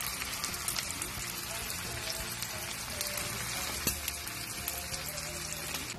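Chopped pork sisig sizzling in a hot pan, a steady hiss dotted with sharp crackles and pops, with soft background music underneath.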